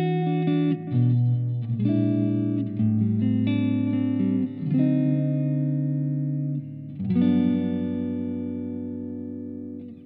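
SQOE SETL450 electric guitar with Alnico humbucker pickups, played with a clean tone: picked chords and single notes, ending on a held chord that rings and slowly fades near the end.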